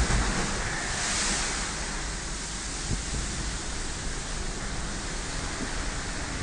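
Storm-whipped sea and wind around a ship: a steady rushing noise of breaking waves and wind, with a louder surge about a second in.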